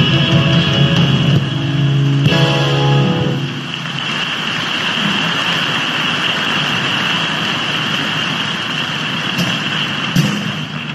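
A live band's final held chords end about three seconds in, giving way to steady crowd cheering and applause.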